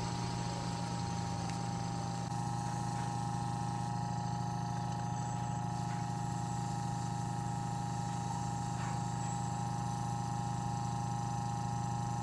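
Small electric fan motor running steadily on a homemade jig, spinning a fan rotor on its shaft, with a low hum and a steady whine.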